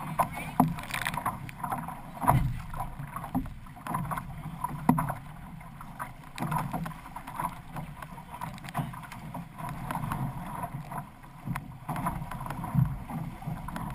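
Six-person outrigger canoe under paddle: water rushing and splashing along the hull, with sharp splashes and knocks from the paddle strokes at an uneven beat, roughly one a second.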